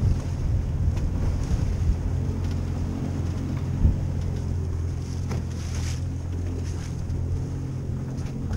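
Yamaha 190 FSH jet boat's engine idling with a steady low hum, wind buffeting the microphone over it, and a single knock about four seconds in.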